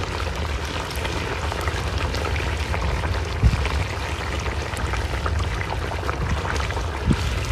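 Pişi dough deep-frying in hot oil: a steady sizzle full of small crackling pops over a low steady rumble, with two dull thumps, one midway and one near the end.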